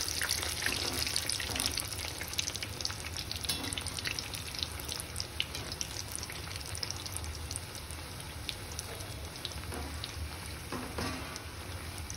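Layered puris deep-frying in hot oil in a steel kadhai: a steady sizzle peppered with small crackles and pops.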